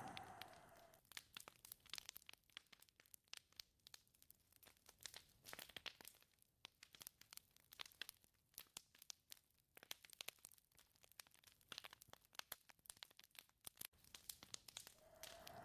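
Wind gusting with a faint whistle, dying away about a second in and rising again near the end. In the lull, faint irregular crackling.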